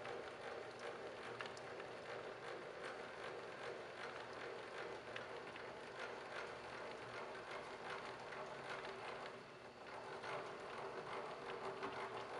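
Blade-raising handwheel of an SCM Minimax SC3 sliding table saw being cranked by hand, its mechanism giving a fast, uneven clicking and rattling as the blade rises through the table. The saw motor is not running.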